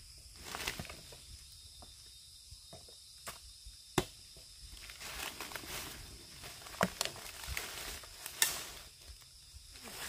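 Dry leaf litter rustling and crunching under someone moving about, with scattered clicks and a sharp knock about four seconds in, over a steady high insect drone.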